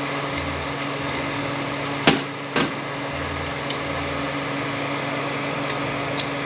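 Two sharp metal clicks about two seconds in, half a second apart, and a lighter tick near the end, as the synchronizer is fitted onto the shaft of a T5 manual transmission. A steady mechanical hum runs underneath.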